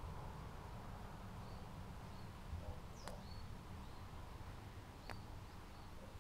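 Faint outdoor background with a few short, high bird chirps, including two sharper chip notes about three and five seconds in.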